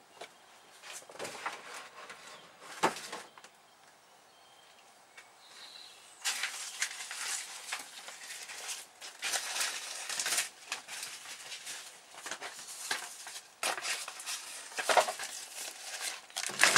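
Stiff card panel template rustling and scraping as it is handled and laid over the kayak's wooden frame, in irregular stretches with a sharp tap about three seconds in and the loudest scrape at the very end.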